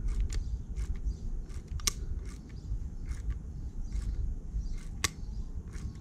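Light metal clicks and taps at an irregular pace, with two sharper clicks, as a bicycle freehub body and its small steel parts are handled during reassembly. A low steady rumble runs underneath.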